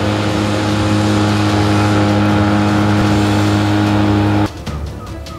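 Outboard motor driving a small boat at speed, running at a steady pitch, then cutting off abruptly about four and a half seconds in; music follows.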